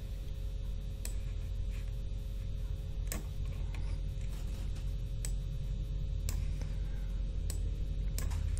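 Computer mouse clicking now and then, about six sharp single clicks spread over several seconds, over a steady low room hum.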